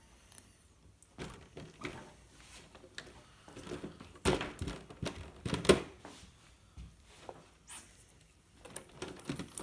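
Scattered handling noises: short knocks, taps and rustles from hands moving and turning a plastic-bodied RC crawler truck, the loudest a little past four seconds and near six seconds in.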